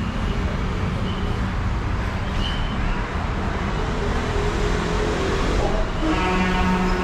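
Road traffic noise: the steady hiss and rumble of passing cars and buses. About six seconds in, a steady pitched drone joins it.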